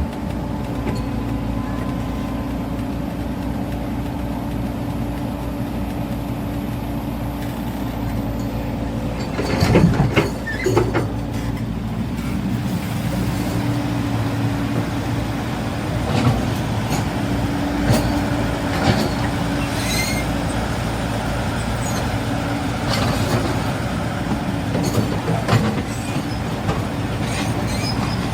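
Cat 395 hydraulic excavator's diesel engine running steadily, with sharp metallic clanks and knocks about ten seconds in and scattered through the second half.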